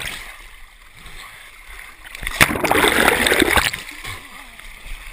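Muddy water splashing and churning close to a head-mounted camera as the wearer wades and ducks through the water obstacle, with a loud surge of splashing from about two and a half seconds in that lasts about a second.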